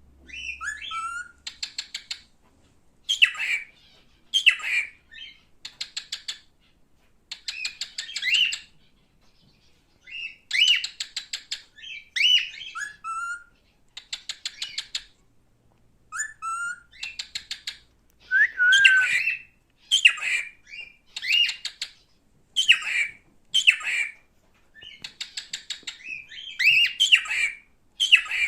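Male cockatiel calling: bouts of rapid chattering chirps with short whistled notes, some rising, repeated every second or two with brief pauses between.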